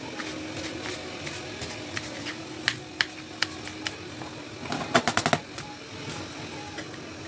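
Knife chopping green beans on a plastic cutting board: irregular sharp taps of the blade on the board, with a quick flurry of knocks about five seconds in. A steady low hum runs underneath.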